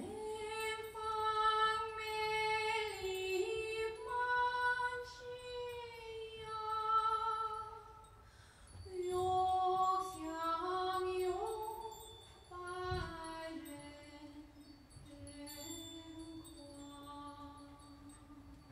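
Erhu playing a slow solo melody: one bowed line gliding and wavering between notes in a voice-like way. It breaks off briefly about eight seconds in, then settles onto softer, lower held notes near the bottom of its range.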